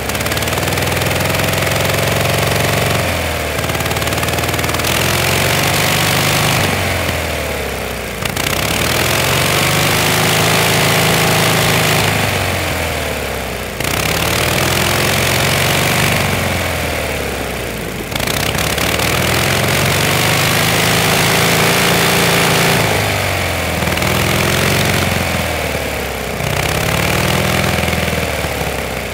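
1912 Indian board track racer's engine, with race-ported cylinders, revved hard about seven times in succession, its pitch rising and then falling back between each blip of the throttle.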